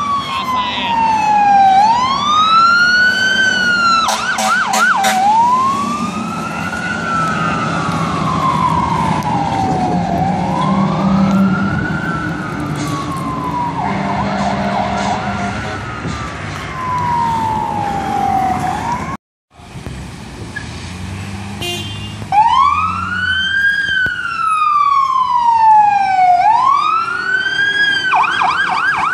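Fire apparatus sirens wailing, rising and falling in slow sweeps every four to five seconds, with short bursts of a fast yelp. The sound cuts out for a moment about two-thirds through, then another siren wails and switches to a rapid yelp near the end, over the low running of the trucks' engines.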